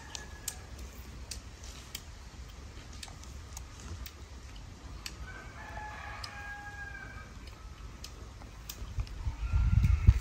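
A rooster crows once, a long call of about two seconds starting some five seconds in, amid scattered faint ticks. Near the end a louder burst of low rumbling noise takes over for about a second and a half.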